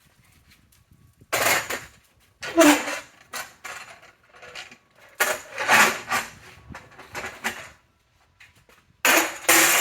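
Metal clanking and scraping in several loud bursts with quiet gaps between, as the parts of a table saw extension table are handled and set into place.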